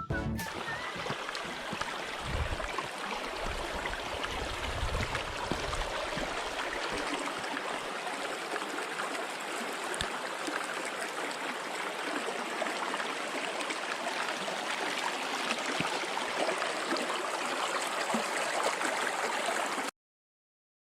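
Mountain stream flowing, a steady, even rushing of water that cuts off suddenly about a second before the end.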